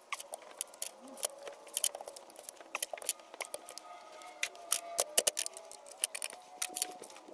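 Steel screwdriver scraping and clicking irregularly against the bearing race inside a cast-iron wheel hub as it is pried at, the race not coming loose.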